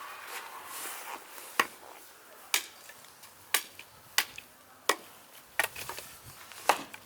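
Chopping: seven sharp, separate strokes, roughly one a second and unevenly spaced.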